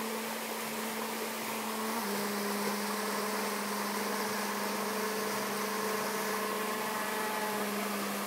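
Saxophone holding one long, steady low note that steps down slightly in pitch about two seconds in, over the steady rush of a stream.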